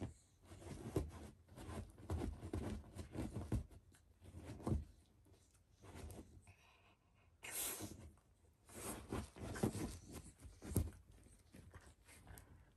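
A Shiba Inu pawing rapidly at a pillow with both front paws, its head pressed into it: bursts of scratchy rustling, on and off with short pauses.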